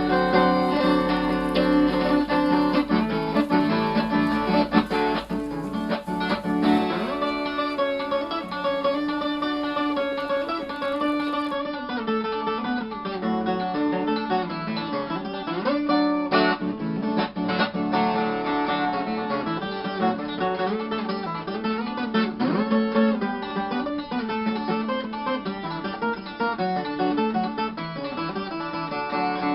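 Moda de viola music: a viola caipira, the Brazilian ten-string guitar, and guitar playing a plucked, steady country tune.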